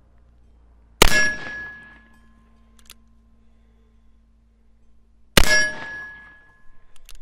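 Two shots from an 1873 Colt Bird's Head single action revolver firing black powder cartridges, about four seconds apart, each followed by the ringing clang of a hit steel target. A faint click comes after each shot as the hammer is cocked again.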